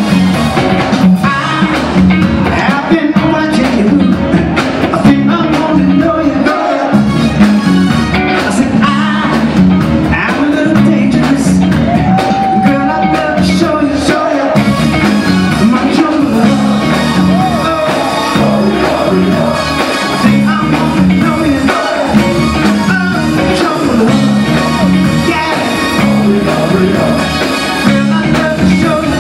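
Live funk band playing: electric bass, drum kit, keyboards and electric guitar with a steady groove, and a lead singer singing over it.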